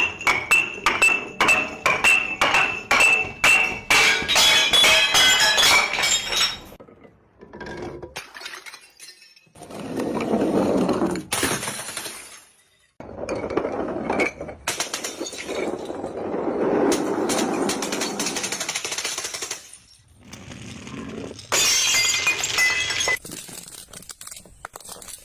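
Glass bottles and jars tumbling down stairs, clinking against the steps and breaking. A quick run of ringing glass knocks fills the first six seconds, then longer rattling stretches follow, with another burst of ringing glass near the end.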